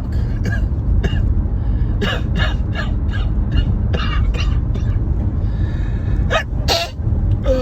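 A man with a heavy head cold sniffing and taking short, hissy gasping breaths, many in quick succession, over the steady low rumble of a car on the road. Near the end come two sharper gasps with a bit of voice in them.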